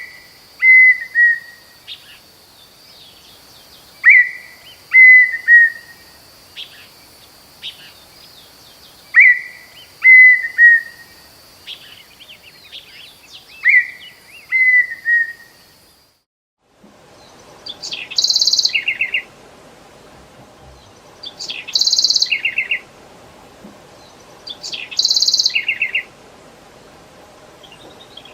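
Songbirds singing, two recordings back to back. First a short phrase of a few falling whistled notes, repeated every four to five seconds over a steady high hum. After a brief silence about halfway through, a different bird repeats a high buzzy note followed by a lower trill about every three and a half seconds.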